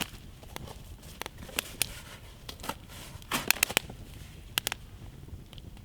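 Wood campfire crackling: irregular sharp snaps and pops, a quick cluster of them a little past the middle.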